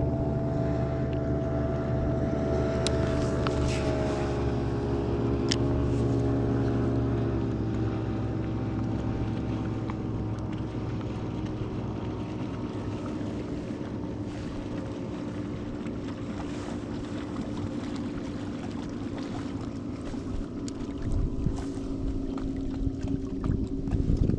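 Boat motor running steadily, its pitch dipping slightly early on and the sound slowly fading.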